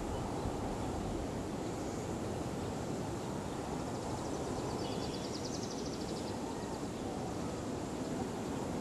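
Steady outdoor background rush with no distinct source standing out. About five seconds in, a faint, quick high trill comes and goes over a second or so.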